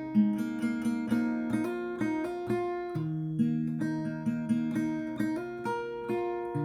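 Solo acoustic guitar played fingerstyle: a steady run of plucked melody notes over ringing bass notes, the bass shifting to a new note about halfway through.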